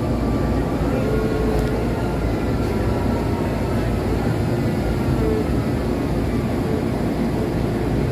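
MRT-3 Tatra RT8D5M light rail train running: a steady rumble of wheels and bogies on the track, with a few faint, brief whines drifting in pitch.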